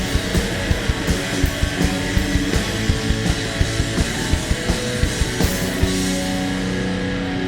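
A rock band playing live: distorted electric guitar over a steady, driving drum beat. About five and a half seconds in the drums stop and a held guitar chord rings on.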